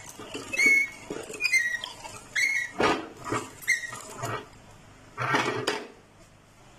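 Hand-cranked metal meat grinder mincing raw beef, squeaking about once a second as the crank turns. The squeaks stop a few seconds in, and a louder clatter follows near the end.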